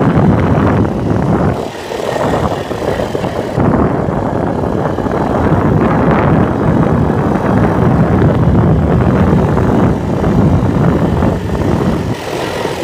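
Quad bike engine running while it is ridden, mixed with wind noise on the microphone, the level dipping briefly about two seconds in.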